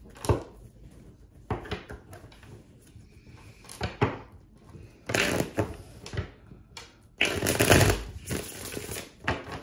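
A deck of tarot cards being handled and shuffled on a wooden table: a few light taps and clicks, then longer spells of rustling cards about five and seven seconds in, and a shorter one near the end.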